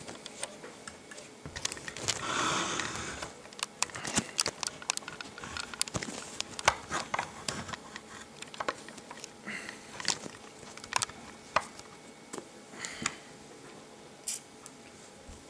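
Vapinaze AC9 Genesis-style rebuildable atomizer being drawn on while it fires. The hot coil crackles and pops irregularly as the e-liquid boils on it, and there is a short breathy hiss about two seconds in.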